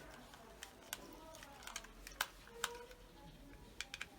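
Faint, scattered clicks and taps of a plastic multi-plug and its wiring being handled during repair, a few sharper clicks about two seconds in and near the end.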